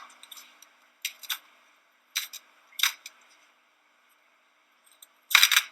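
A kitchen blade scraping through a raw potato in short, sharp strokes, a few at uneven intervals, with a longer, louder stroke near the end.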